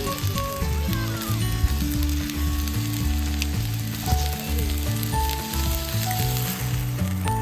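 Food frying in a hot pan with a steady sizzle, under background music with held low notes and a simple melody.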